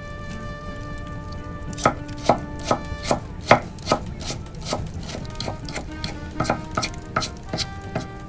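Background music with held tones; from about two seconds in, a run of sharp, irregular knocks, roughly two a second.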